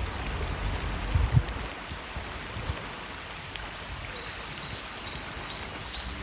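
Steady rain falling, an even hiss flecked with many small drop ticks, with a few low thumps about a second in.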